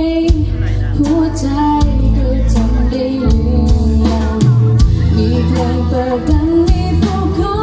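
Live pop band playing through a PA system: a woman sings into a microphone over electric guitars, bass and a drum kit.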